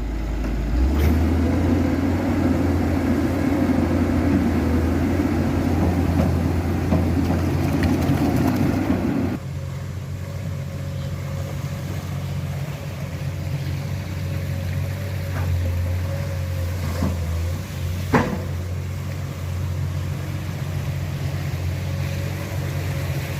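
Komatsu excavator's diesel engine running steadily, louder and fuller for about the first nine seconds, then dropping to a quieter, even run. A single sharp knock comes about three-quarters of the way through.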